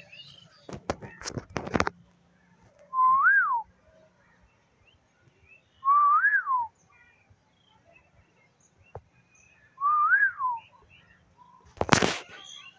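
A clear whistle, three single notes a few seconds apart, each rising then falling in pitch, over faint high bird chirps. A few clicks sound early, and a sharp knock comes just before the end.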